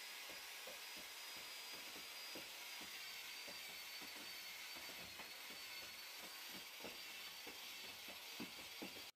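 Corded drill with a paddle mixer running steadily in a plastic trash can of aircrete mix: a steady high motor whine with frequent light knocks. It stops suddenly at the end.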